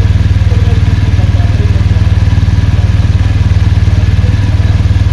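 BMW R1250 GS's boxer-twin engine idling steadily, a low, even pulsing. Faint voices in the background.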